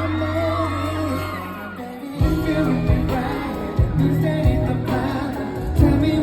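Live pop song played through a PA with singing, and a few whoops from the audience in the first two seconds over a held bass note; just over two seconds in, the drums and bass come in with a steady beat.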